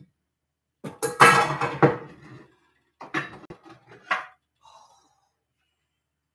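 Kitchenware being handled: dishes and pans clattering and clinking, loudest about a second in, followed by a few shorter knocks.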